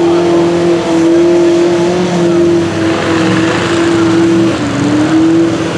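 Mud truck engine held wide open at high revs, a steady high drone that sags briefly about four and a half seconds in before climbing back.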